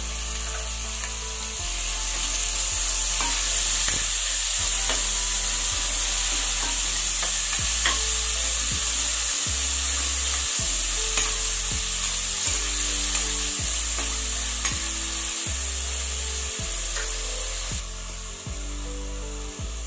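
Minced mutton and sliced onions sizzling as they fry in oil in an aluminium pressure cooker pan, with a metal spoon scraping and clicking against the pan as it is stirred. The stirring stops near the end and the sizzle drops a little.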